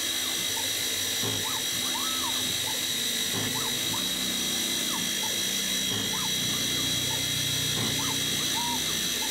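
CNC milling machine spot-drilling an aluminium plate: the spindle runs with a steady high whine while the axes move between hole positions. Each move is a short tone that rises and falls, every second or so.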